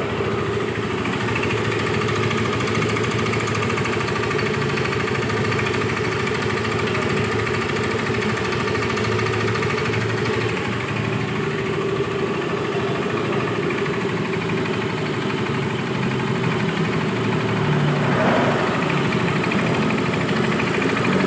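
Yamaha Mio i 125S scooter's single-cylinder four-stroke engine idling steadily with a knocking sound that is still there after a new cylinder and piston. The mechanic suspects the connecting rod or crankshaft.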